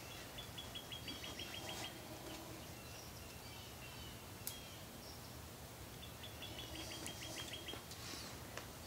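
A small bird singing a quick trill of about a dozen evenly spaced high chirps, twice: once near the start and again about six seconds in. Faint other bird calls sit over a steady background hiss, with a single sharp click about halfway through.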